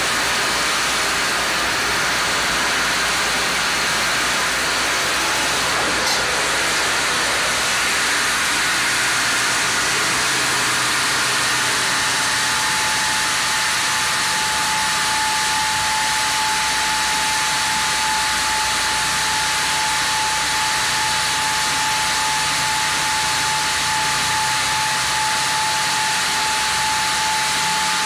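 Sawmill band saw headrig sawing a Japanese kalopanax log on its carriage: a steady, loud hiss of blade and machinery, with a steady high whine coming in about halfway through.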